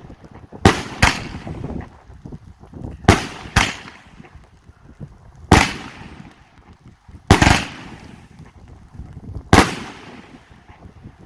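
Big Bang Brocade 25-shot 2-inch (50 mm) fireworks cake firing: seven sharp, loud bangs, the first four in two quick pairs about half a second apart, then three single bangs about two seconds apart.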